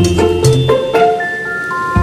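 Background music with a steady beat, thinning out in the second half to a few held high notes.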